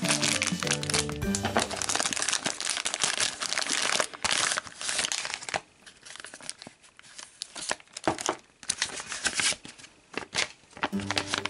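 A plastic toy blind-bag packet crinkling densely as hands work it open, thinning to scattered crackles after about five seconds as a folded paper insert is handled. Light music plays in the first second or so.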